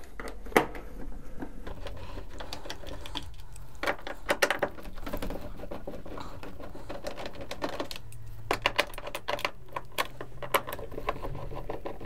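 Torx screwdriver turning Torx 20 screws out of a washing machine's front control panel by hand: clusters of light clicks and scrapes from the driver and screws, in several bursts with short pauses between.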